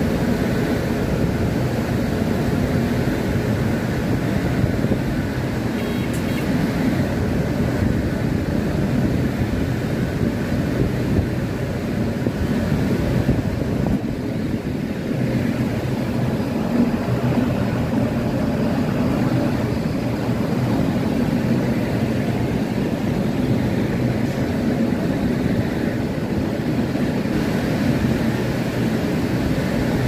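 Freight train running, a steady low rumble of wheels on the track.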